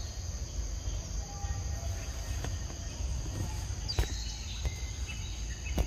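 Steady high-pitched insect chorus over a low outdoor rumble, with a sharp click about four seconds in and another near the end.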